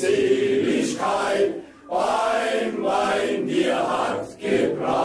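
Male-voice choir singing, phrase by phrase, with short breaks between lines about two seconds in and again near the end.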